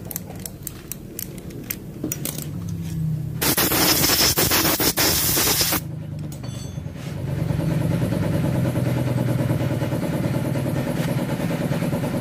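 Ratchet handle clicking as a tap is turned to cut a thread into a drilled bolt hole in a motorcycle engine case. A loud rushing noise follows for about two seconds, and from about two-thirds of the way in an engine runs steadily.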